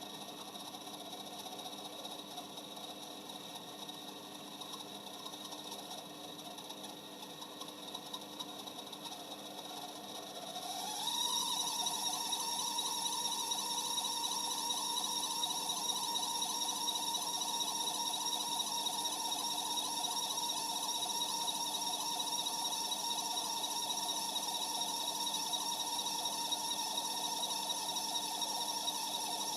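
Corona UH-F65A kerosene stove's intake fan running with an abnormal whining noise. About eleven seconds in the whine rises in pitch and gets louder, then holds steady.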